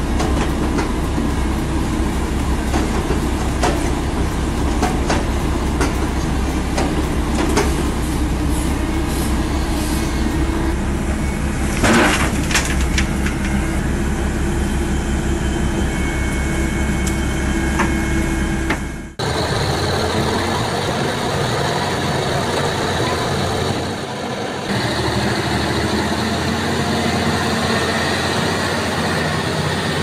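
Tracked excavator's diesel engine running under load as its bucket rips a tree stump out of the ground, with scattered cracks and a loud sharp crack about twelve seconds in. About nineteen seconds in the sound cuts suddenly to a different steady engine noise, from a loaded logging truck labouring through mud.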